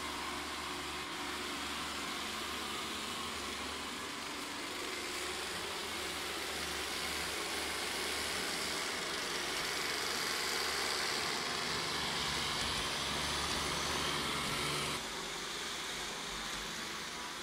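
Vorwerk Kobold VR200 robot vacuum running as it cleans a hard floor, its suction fan and brushes giving a steady whirring hiss. The noise drops slightly and suddenly about fifteen seconds in.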